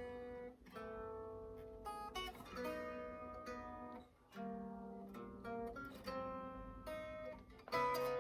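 Solo acoustic guitar played fingerstyle: picked melody notes over ringing bass and chords, with the notes left to sustain between plucks.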